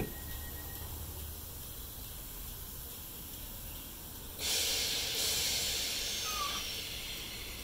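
Sudden hiss of compressed air venting from a stationary Greater Anglia electric multiple unit, starting about halfway through and tailing off over a couple of seconds, over the train's low steady hum.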